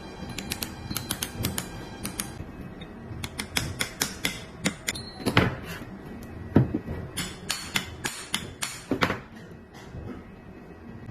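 Irregular metallic clicks, clinks and knocks of air impact wrench parts being handled and tapped during an overhaul, several a second at times with pauses between.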